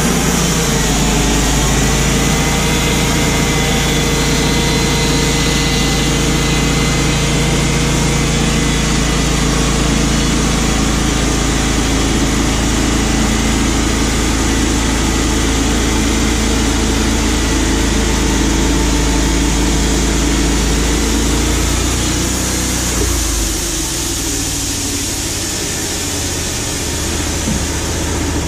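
Wood-Mizer LT35HD portable sawmill running steadily at speed, a loud engine and machine drone. About three-quarters of the way through it drops to a lower, quieter running for a few seconds.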